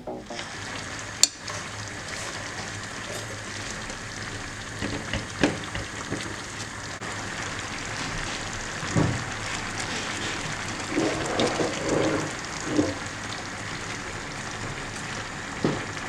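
Food sizzling in a pan on the stove: a steady crackling hiss, with a sharp click about a second in and a few brief knocks and clinks later.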